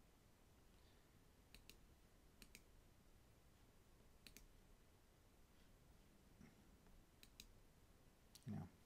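Faint computer mouse clicks, several in quick pairs, as fonts are picked from a drop-down menu, over near-silent room tone. A brief low voiced sound comes near the end.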